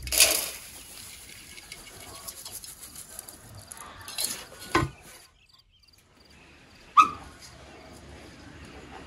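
Coarse dry grain feed poured from a metal bowl into an enamel basin: a short rushing hiss at the start and another about four seconds in, the second ending in a knock. About seven seconds in, the enamel basin gives a sharp, ringing clank.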